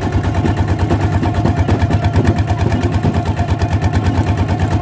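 Single-cylinder diesel engine of a two-wheel walking tractor running steadily under way, a fast, even beat of exhaust pulses.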